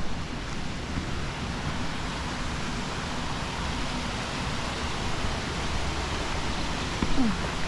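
Waterfall rushing steadily, an even hiss of falling water. A brief low falling sound stands out near the end.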